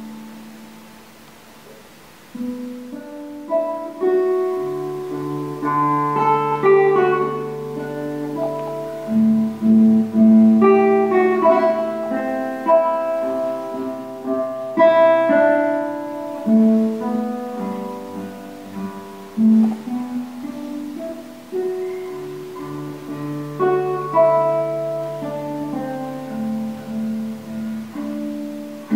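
Solo nylon-string classical guitar, fingerpicked. A chord rings and fades over the first two seconds. Then flowing arpeggios build up over held bass notes and carry on.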